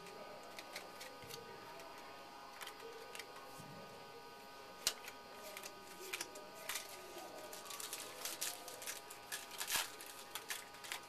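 Trading cards and foil pack wrappers being handled and opened by hand: scattered small clicks and rustles, with one sharper click about five seconds in and busier handling in the second half.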